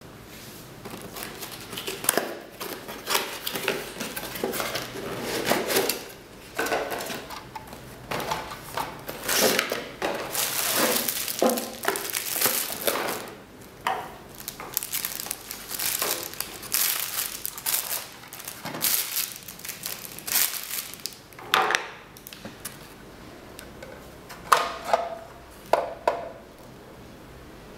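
Clear plastic packaging bag crinkling and crackling in an irregular run as it is handled and opened. Near the end the crinkling stops, leaving a few separate sharp clicks of hard plastic parts being handled.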